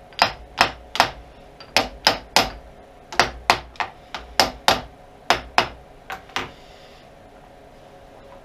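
A brass hammer tapping metal parts at the end of a lathe's cross slide: about sixteen sharp, ringing taps in quick groups of two or three, stopping a little past halfway through, as a part of the new crossfeed lead screw assembly is knocked into place.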